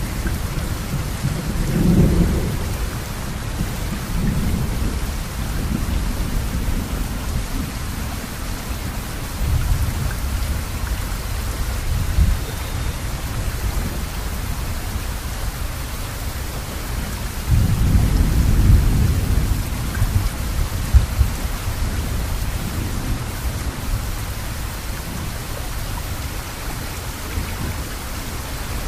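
Steady rain hiss with low rolls of thunder swelling up several times, the longest and loudest rumbling for about three seconds a little past the middle.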